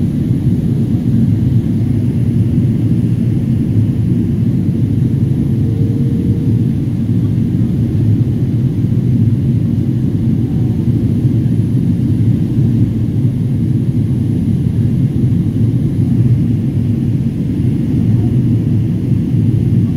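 Steady cabin noise of an airliner heard from inside the cabin during its descent: engine and airflow noise making a low, even rumble.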